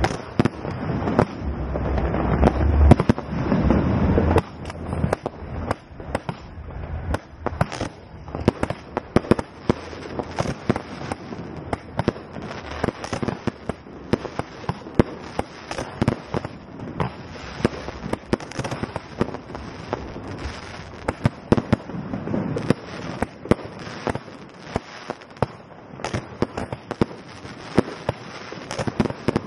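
Fireworks going off close by: heavy booming for the first four seconds or so, then a long run of sharp cracks and crackling, several a second.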